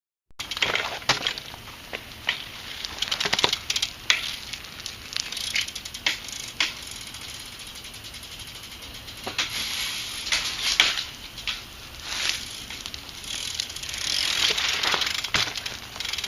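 A BMX bike being ridden: irregular clicks, knocks and rattles from the bike, with swelling rushes of hiss, loudest near the end.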